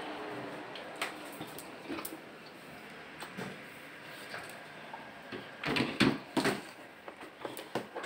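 Drum wet-and-dry vacuum's motor winding down and fading after being switched off, followed by a few scattered clicks and then a cluster of louder knocks and thuds about six seconds in.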